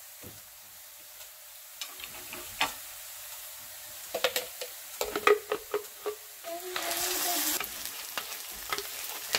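Onions, curry leaves and green chillies sizzling in hot oil in a nonstick frying pan, with a wooden spatula scraping and tapping against the pan. About seven seconds in, a wet ground masala paste goes into the oil and the sizzle grows louder for under a second.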